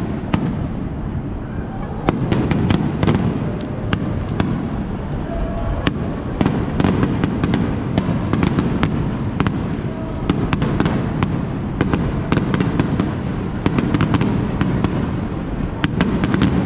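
Aerial fireworks bursting in quick succession: many sharp cracks and crackling pops over a continuous low rumble of explosions.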